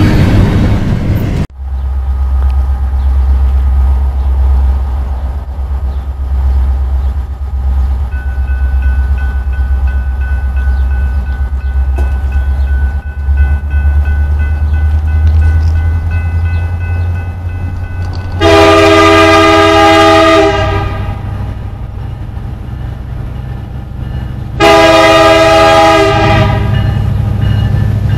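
Diesel locomotive rumbling low and steady, then its air horn sounds two loud blasts, a chord of several tones: the first about two seconds long, the second just over a second, some six seconds apart. At the very start a loud rush of noise cuts off suddenly.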